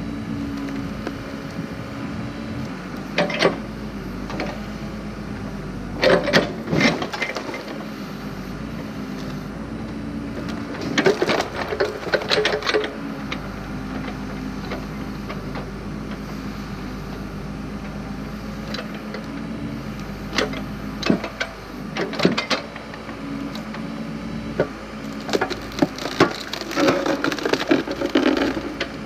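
Backhoe engine running steadily while its log-splitter attachment forces through logs. Wood cracks and splinters loudly in about five separate bursts as the logs split.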